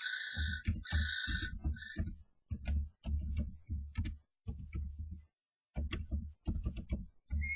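Common starlings fighting inside a nest box: scuffling and wing-beating, with the birds knocking against the box in quick bursts of thumps and clicks and a pause about halfway. Harsh screeching calls come in the first two seconds.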